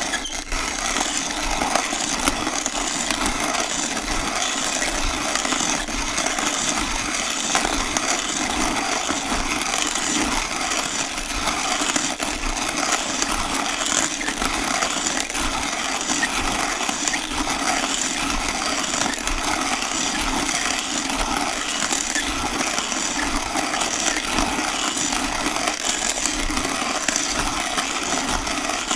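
Vintage hand-cranked coffee grinder being turned steadily, the beans crunching and grating between the burrs without a break.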